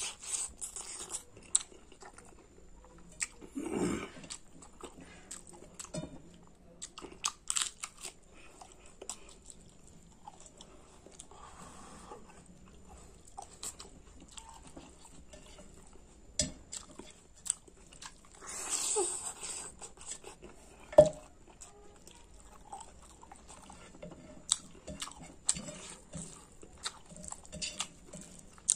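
Close-miked eating: a person chewing and crunching on spicy pork curry with rice, with irregular sharp clicks and a few longer, noisier swells.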